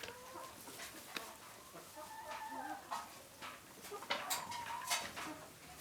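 A flock of Leghorn hens clucking and giving short calls, with scattered light ticks and scratches among them.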